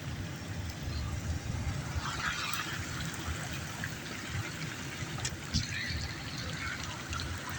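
Heavy rain runoff rushing across a road in a steady flow of water, with uneven low wind rumble on the microphone.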